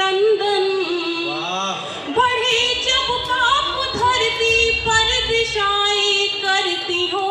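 A woman singing solo into a microphone, holding long notes and bending them into ornamented melodic runs.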